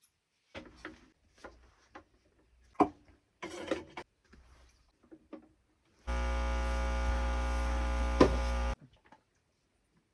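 A few scattered clicks and knocks of things being handled, then a small electric motor runs steadily with a strong hum for about two and a half seconds, starting and stopping abruptly.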